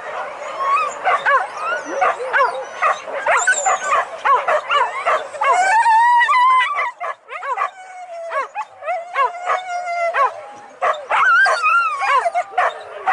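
A pack of boar-hunting dogs barking and yelping, several at once, with longer wavering yelps about halfway through.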